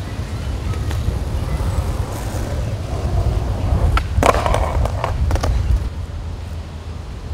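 Skateboard rolling on a paved path, with a cluster of sharp clacks and rattling about four to five and a half seconds in, over a steady low rumble.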